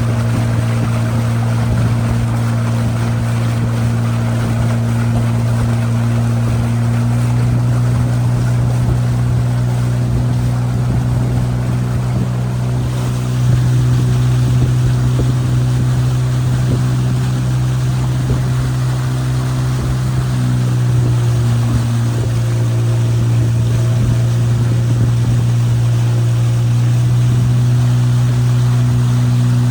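Outboard motor of a small open boat running at a steady speed, with the noise of water and wind rushing past.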